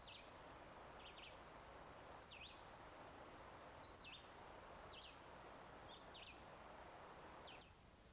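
A small bird giving short, sharp chirps about once a second, eight or so in all, over a faint steady background hiss that drops away near the end.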